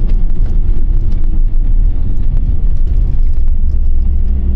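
Camper van driving on the road, heard from inside the cab: a steady low engine and road rumble with scattered small clicks and rattles.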